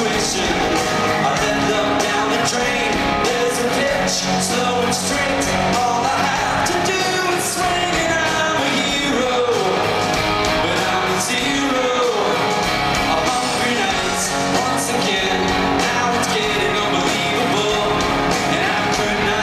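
Live rock band playing a song at full volume: electric guitars, drums and keyboards, with a man singing lead, in a large arena hall.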